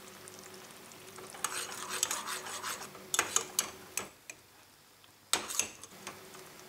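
Metal spoon stirring and scraping against a small enamel saucepan as chopped onion gently fries in melted butter, with a soft sizzle underneath. The scraping comes in short bursts, with a brief near-silent pause a little past the middle.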